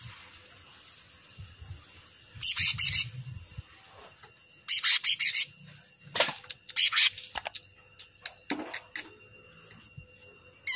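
A caged cucak ranting, a green leafbird, singing in short loud bursts of rapid, high chattering phrases a second or two apart. A faint steady high-pitched tone runs underneath.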